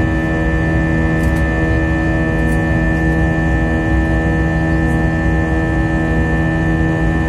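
Airliner jet engines heard inside the passenger cabin during the climb after takeoff: a steady drone with a low rumble and several steady whining tones.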